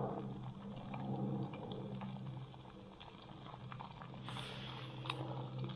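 Gas canister stove burning steadily under a pot of thick butter chicken sauce that is simmering, with many small pops from the bubbling sauce. A few brief scratchy sounds come in from about four seconds in.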